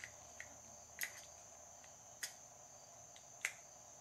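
Faint, sharp clicks of a screwdriver working the small screws on a Mikuni carburetor's vacuum piston top plate, about five of them at irregular intervals roughly a second apart, the loudest a little after three seconds in.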